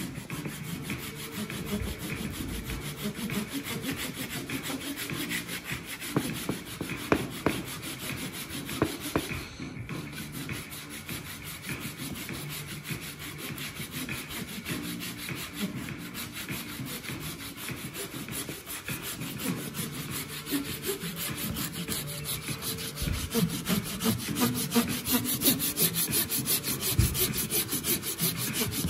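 Fine-toothed hand saw cutting back and forth into laminated plywood, a steady run of quick strokes that grows louder in the last several seconds.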